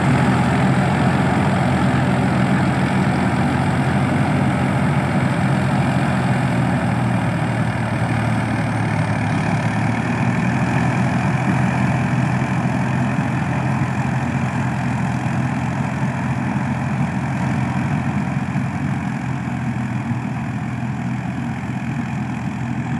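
Balkar B-525 combine harvester's diesel engine running steadily under load as the machine harvests paddy. The sound grows slightly fainter as the harvester moves away.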